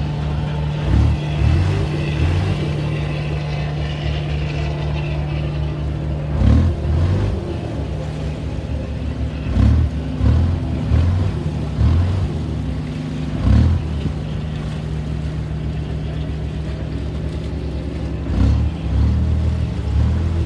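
River passenger ferry's diesel engine running steadily under way, a constant low drone. Irregular low rumbles of wind buffeting the microphone come and go over it.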